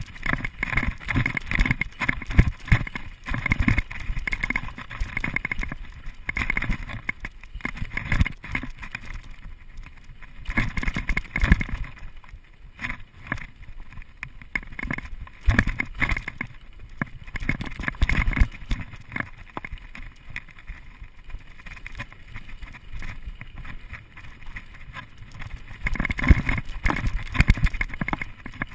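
Mountain bike riding fast over a rough dirt trail: the bike rattling and clattering over bumps in an uneven stream of knocks, under a steady rush of wind on the camera's microphone.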